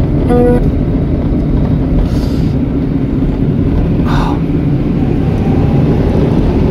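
Car driving, heard from inside the cabin: a steady low rumble of engine and road noise. There is a short tone about half a second in and two brief hisses at about two and four seconds.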